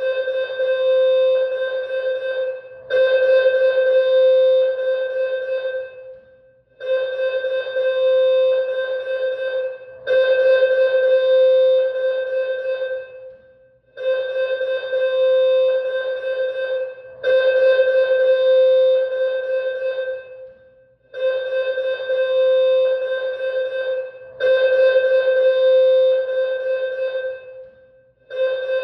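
School alarm warning loop: an electronic alarm tone at one steady pitch, sounding in blasts of about three seconds that come in pairs, with a short break after each pair. The pattern repeats about every seven seconds.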